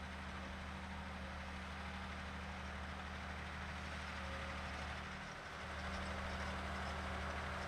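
Valtra T214 tractor's diesel engine running steadily under load while pulling a five-furrow plough. The engine note dips briefly about five seconds in, then comes back a little louder.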